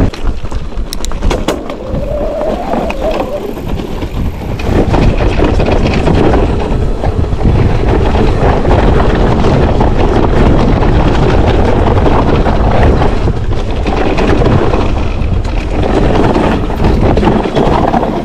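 Propain Ekano electric enduro mountain bike descending a trail: steady wind buffeting on the camera microphone mixed with tyre noise and rattling from the bike over rough ground, with a few sharp knocks about a second in.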